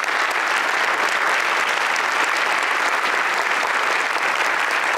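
Audience applauding steadily, dense even clapping.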